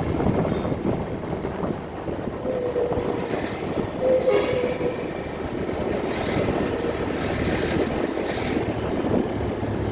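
Leaf blower running steadily. A held tone sounds over it from about two and a half to five seconds in.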